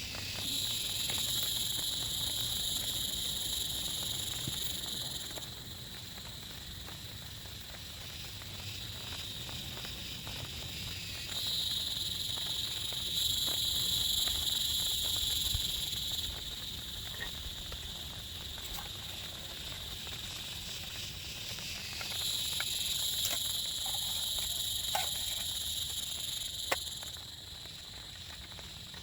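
Insects calling in a steady high-pitched whine that swells in three bouts of about five seconds each, over a low steady background hiss with a few scattered ticks.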